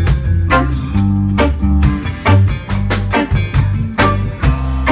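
Live rock band playing an instrumental passage with no vocals: electric guitars and electric bass over a drum kit keeping a steady beat, with keyboards.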